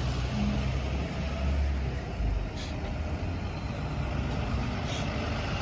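School buses running, a steady low engine rumble with road noise.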